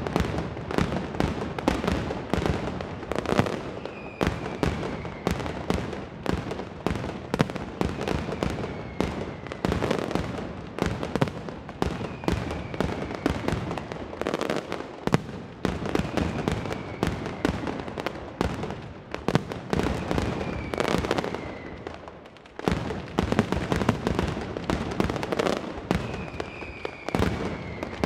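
Mascletà: strings of masclet firecrackers hung on ropes exploding in a rapid, unbroken barrage of bangs, with a short falling whistle every few seconds. The bangs thin briefly about 22 seconds in, then come back suddenly louder.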